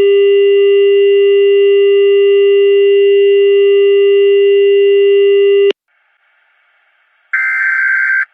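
Synthesized emergency-alert tones of a mock broadcast warning. A loud, steady electronic tone holds for nearly six seconds and cuts off abruptly. After a short gap of faint hiss, a harsh buzzing tone burst of about a second comes near the end.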